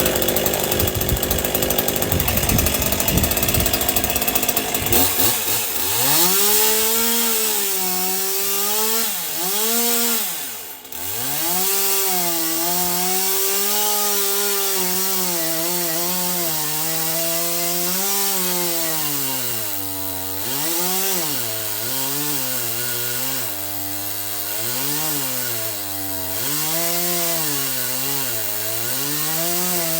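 Stihl MS 201 C-M two-stroke chainsaw running hard while cutting through a large Douglas fir log. The engine speed keeps rising and falling as the chain takes load, dropping sharply about ten seconds in and dipping several times later.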